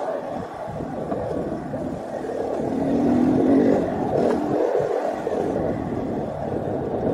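KTM 500 EXC enduro bike's single-cylinder four-stroke engine running under varying throttle on a trail ride, opening up to its loudest about three seconds in and then easing back.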